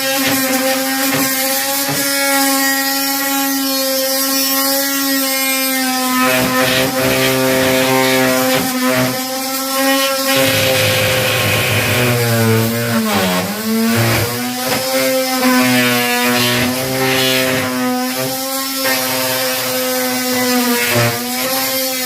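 Electric power tool motor running at a steady pitch, then from about twelve seconds on its pitch repeatedly dips and wavers as it is loaded, consistent with sawing through drain pipe.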